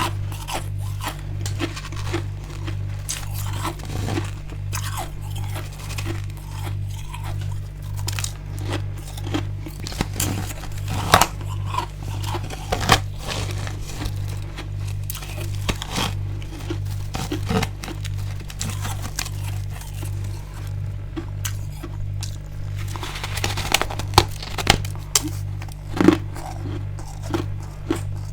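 Close-up crunching and chewing of hard freezer ice with built-up frost: crisp, crackly bites and grinding chews at irregular intervals, with a denser burst of louder crunches near the end.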